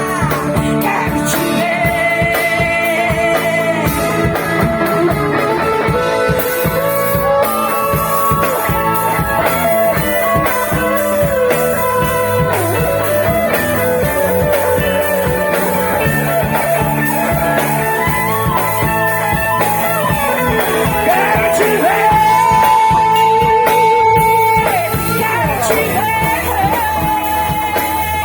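Live worship band playing a song: a woman singing over keyboard, electric bass, electric guitar and drum kit. Near the end she holds one long high note, the loudest part.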